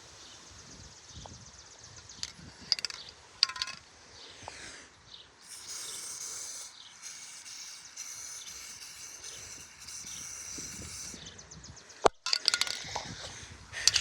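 Aerosol can of penetrating grease spraying onto a bicycle chain: a steady hiss lasting several seconds with one short break. A few light clicks come before it, and there is a sharp knock near the end.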